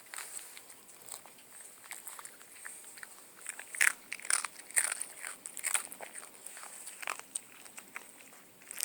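Dog chewing a hard dog cookie: a run of irregular crisp crunches, loudest and thickest in the middle.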